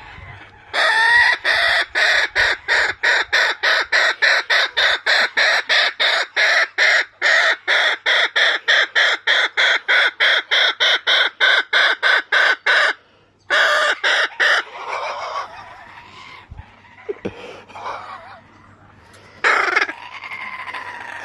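Kookaburra calling: a long run of loud, rapidly repeated notes, about four a second for some twelve seconds, then a short burst and a single call near the end.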